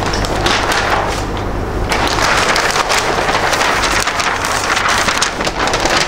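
Large flip-chart paper sheets being turned over and handled, giving a loud, continuous crackling rustle.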